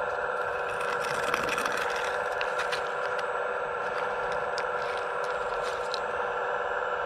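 RC Hitachi ZX135US model excavator's hydraulic pump whining steadily while its bucket scrapes into the rubble and scoops a load, small stones clicking and crunching from about one to six seconds in.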